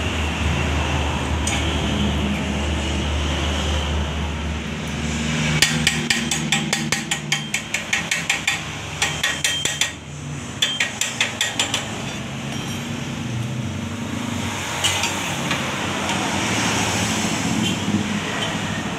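Rapid metal tapping on a steel motorcycle muffler, about five sharp knocks a second, in two runs with a short break between them.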